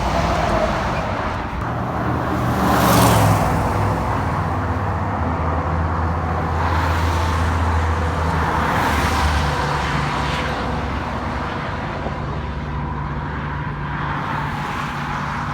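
A truck passing on the freeway, its tyre noise loudest about three seconds in, with the low drone of its engine carrying on for several seconds afterwards. More vehicles pass in the traffic behind it.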